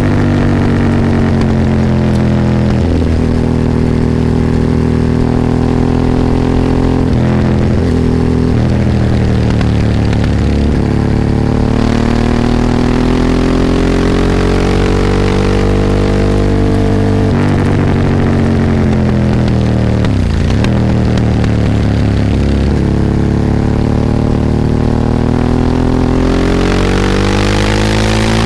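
Ducati 998's L-twin engine heard from onboard while riding. Its pitch climbs through the revs and drops back several times as it accelerates and shifts gear. Partway through it winds down for a few seconds, then pulls and climbs again near the end.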